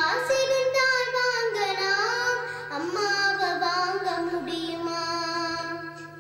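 A young girl singing a Tamil song through a handheld microphone, holding long notes that slide between pitches, over a steady low hum; the phrase dies away near the end.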